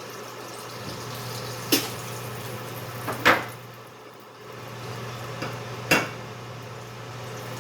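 Three sharp clinks of a utensil against a frying pan as excess frying oil is taken out of it, the middle one loudest, over a steady low hum.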